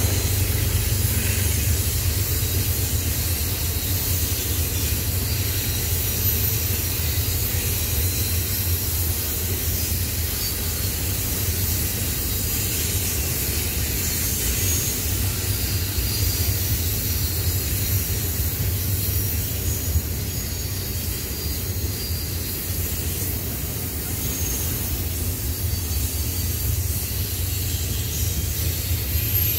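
Double-stack intermodal freight train's container well cars rolling past: a steady low rumble with a hiss from the wheels on the rails, unbroken throughout.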